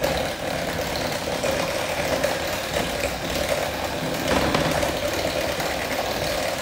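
Electric hand mixer running steadily, its beaters churning chilled butter and condensed milk in a glass bowl. The beaters are still working through lumps of cold butter and find it hard to move.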